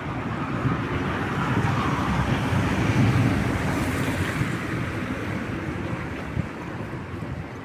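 A vehicle passing on a wet street, its tyres hissing on the water, swelling to a peak about three seconds in and then fading away.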